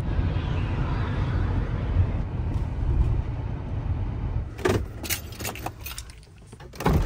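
Minivan running, heard from inside the cabin as a steady low rumble. About two-thirds of the way through it gives way to a quick run of sharp clicks and knocks, with a louder knock at the end.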